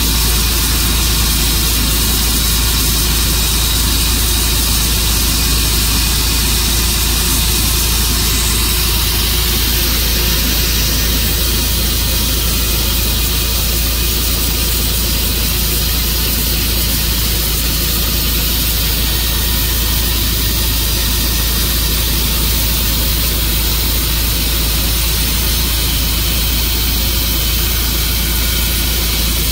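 Tru-Cut sawmill running steadily: a loud, continuous engine-and-saw noise with a low hum and a wide hiss, unchanging throughout.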